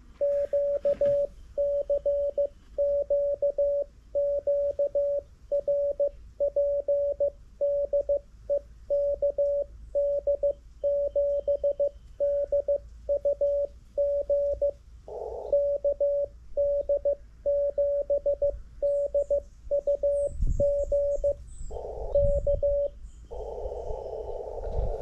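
mcHF QRP transceiver sending a stored CQ message in Morse code: its CW sidetone, a steady mid-pitched tone, keyed on and off in dots and dashes. Short patches of receiver band hiss come between parts of the message, and the hiss carries on alone once the sending stops near the end.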